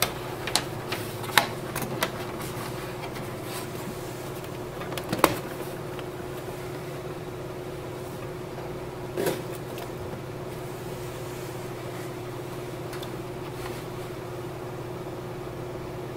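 Hands working an HP OfficeJet mobile printer as it is switched on: several sharp clicks and knocks in the first couple of seconds, one about five seconds in and a duller knock about nine seconds in, over a steady background hum.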